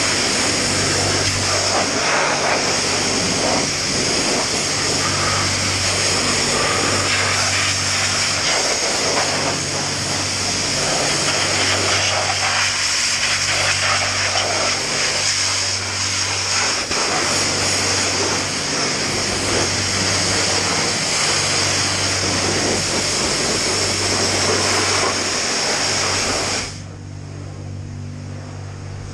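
High-pressure car-wash lance blasting a water jet onto a dirt bike's wheel and engine: a loud, steady hiss that is cut off suddenly near the end. Under it, a low hum swells and fades about every two seconds.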